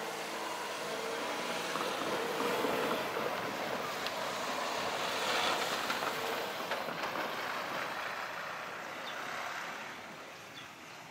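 A train running through the station: its rumble builds, is loudest about halfway through, and fades near the end.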